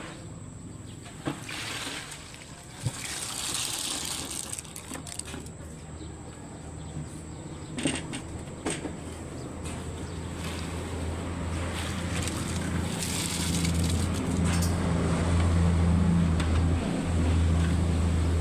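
A motor or engine running with a low, steady hum that grows louder over the second half, after some scattered knocks and hissing.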